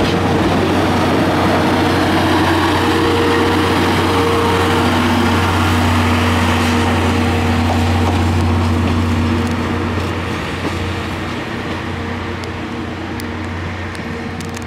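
Diesel train of the Watarase Valley Railway running past and pulling away: a steady engine hum over the rumble of wheels on rail, fading after about ten seconds as it goes off down the line.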